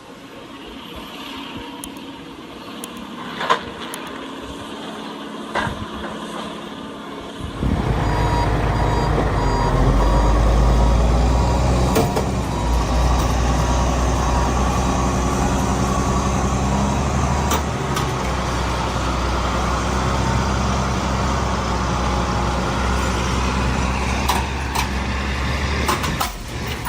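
Heavy vehicle or machine engine running steadily and loud, coming in about seven and a half seconds in, with a reversing alarm beeping over it for several seconds. Before that, quieter noise with a few sharp knocks.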